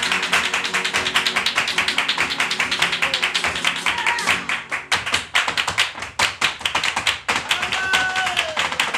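Flamenco zapateado: rapid heel-and-toe footwork stamped on a wooden stage, many taps a second, mixed with hand-clapping (palmas). Guitar plays under it for about the first half, then drops away, leaving the footwork and claps, with a short shout near the end.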